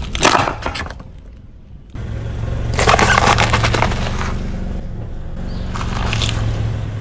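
A car tyre crushing small drink cans with a burst of crunching near the start, then rolling onto a cabbage leaf with crackling crunches about three seconds in and again near six seconds, over the steady low hum of the idling engine.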